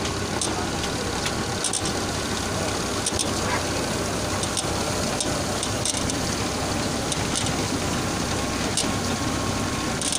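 Orange washing and grading machine running: a steady motor hum under the hiss of water spray, with irregular light knocks as the oranges roll and bump against the rollers and each other.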